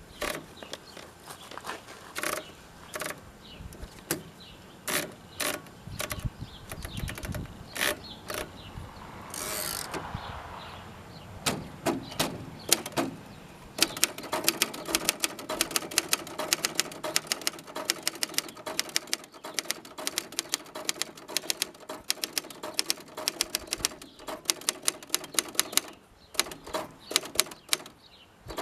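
1963 Royal Empress manual typewriter being typed on: at first scattered single keystrokes, then from about halfway a fast, steady run of sharp key clacks. A short scraping sweep comes about a third of the way in.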